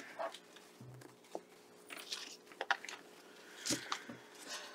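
Quiet room tone with a faint steady hum and a few scattered short taps and rustles from people handling things at a table.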